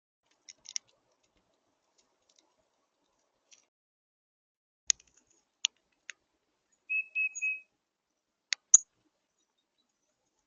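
Northern cardinals giving sharp, high chip notes, scattered singly and in pairs, with a brief run of three short whistled notes about seven seconds in.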